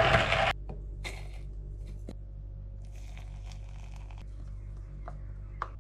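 Coffee being brewed with an AeroPress Go: a loud rush of noise that stops about half a second in, then scattered light clicks, knocks and scrapes of the brewer being handled, over a low steady hum.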